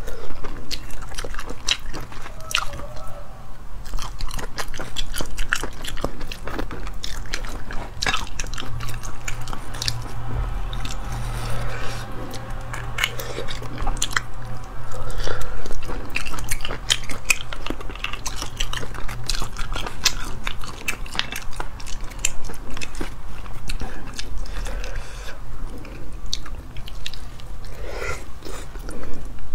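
Close-miked eating of sea snails in chili sauce: biting and chewing the snail meat, with many sharp, irregular wet mouth clicks.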